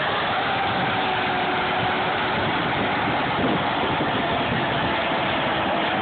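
Tractor engines running steadily, with a large modern tractor driving past close by.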